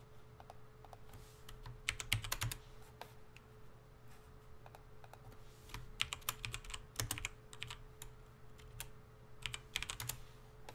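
Typing on a computer keyboard: short bursts of key clicks with pauses between them, about two seconds in, again around six to seven seconds in, and near the end.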